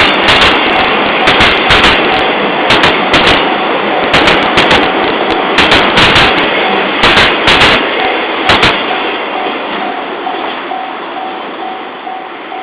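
Freight wagons rolling over the crossing, their wheels clacking over the rail joints in pairs about a second and a half apart, bogie after bogie. The last wagon clears about nine seconds in and the rumble fades. Under it all the Japanese level-crossing bell dings steadily, about twice a second, and keeps ringing after the train has gone.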